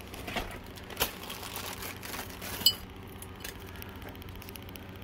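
Alligator-clip test leads being handled and clipped onto an angle grinder's switch terminals: light clicks and rattles, with two sharper clicks about one and two and a half seconds in, the second with a brief metallic ring.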